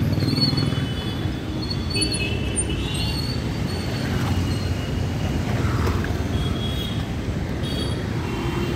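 City road traffic: car and motorcycle engines passing close by, a steady low rumble of engines and tyres.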